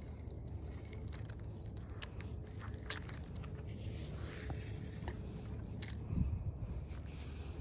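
Scraping and crunching handling noise over a steady low rumble, with a few sharp clicks about three seconds in and a dull thump near the six-second mark.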